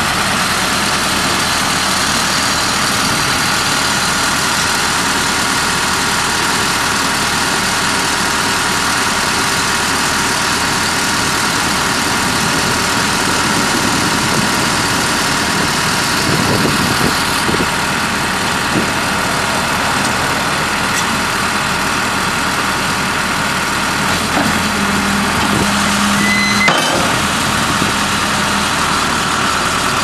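A 2000 Case 580L backhoe's four-cylinder diesel engine running steadily.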